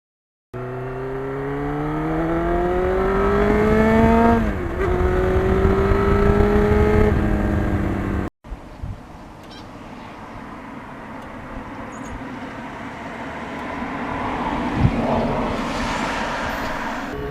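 A 1991 Yamaha FZR1000's inline-four engine accelerating, its pitch climbing for about four seconds, dipping at a gear change and pulling again before easing off. After a cut, the engine is faint under a steady rush of wind and road noise, with a single thump near the end.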